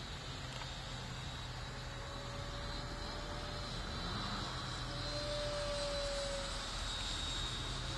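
64 mm electric ducted fan of a radio-controlled model F-16 jet whining as the model flies by, a thin tone that swells about five seconds in and then eases off.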